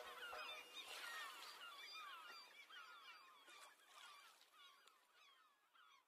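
Near silence as the loud sound before it dies away over the first few seconds. Faint, short, high chirping calls repeat steadily through it.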